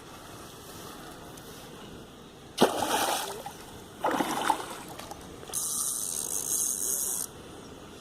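A hooked fish splashing at the water's surface twice, the first splash the loudest. Then a steady high hiss for about two seconds that stops suddenly.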